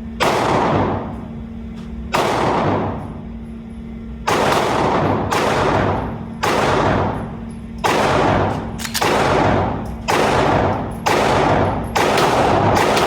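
Glock 45 Gen 6 9mm pistol being fired, about ten single shots spaced one to two seconds apart, each ringing out for about a second. Near the end the shots come faster, in a quick run.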